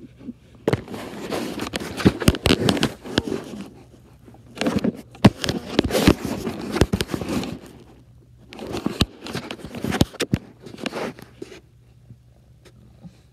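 Handling noise from a phone's microphone rubbing and brushing against cat fur and a soft blanket: three bursts of crackling and scraping with sharp clicks, each a few seconds long, with quieter pauses between and a quiet stretch near the end.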